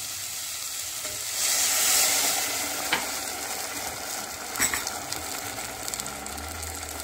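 Hot water poured into a pot of bulgur frying with vegetables, hissing loudly for about a second as it hits the hot pan, then a steady bubbling sizzle with a couple of light knocks. This is the water being added to start the pilaf cooking.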